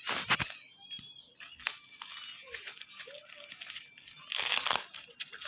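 Plastic packaging crinkling and tearing as it is opened, with two louder spells, one at the start and one about four seconds in.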